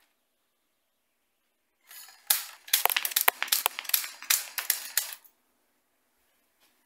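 A rapid, irregular string of loud, sharp plastic clicks and clacks from the motorized LEGO Technic tank's mechanism, starting about two seconds in and lasting about three seconds.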